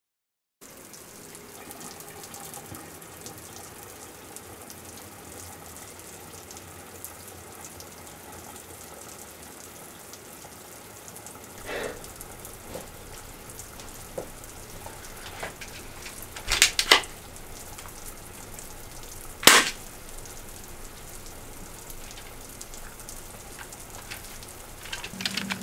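Faint steady hiss of room tone in a small bathroom, broken by a few sharp clicks or knocks: a light one about 12 seconds in, then two louder ones close together and a last one a few seconds later.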